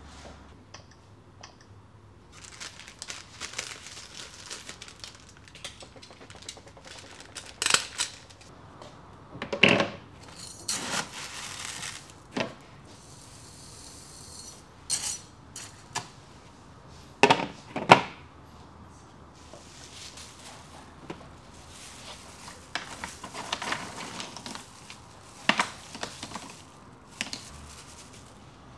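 Objects being handled: scattered clicks and knocks with some rustling, and a few louder sharp knocks, two of them close together a little past the middle.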